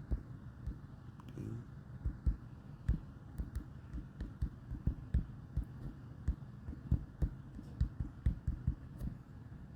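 Irregular light taps and thumps of fingertips on a phone's touchscreen, about two to three a second, picked up by the phone's own microphone.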